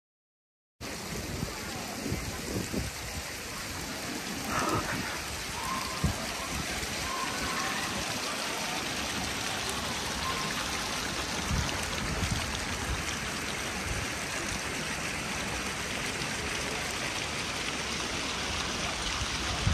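Steady hiss of falling water, starting after a brief dead silence at a cut.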